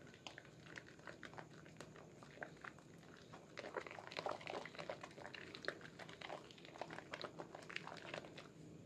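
Wet squelching and crackling of thick soap lather as a bar of Sehat red soap is squeezed and rubbed in bare wet hands over a basin of foam. The squishing gets busier and louder about three and a half seconds in.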